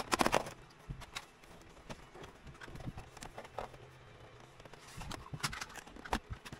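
Sharp plastic clicks and knocks from prying along the edge of an Asus X756U laptop's bottom case with a plastic pry tool: a cluster at the start, a few scattered ones, and another run about five seconds in.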